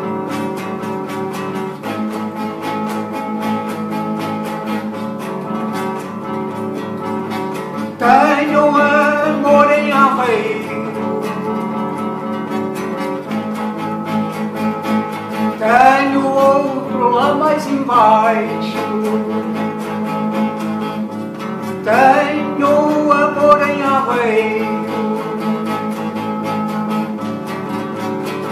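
Nylon-string classical guitar strummed in a steady rhythm, with a man's voice singing three short phrases over it, each louder than the guitar.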